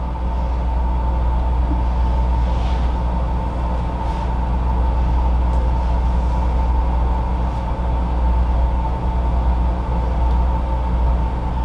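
Steady low rumbling hum with a faint steady tone above it, unchanging throughout.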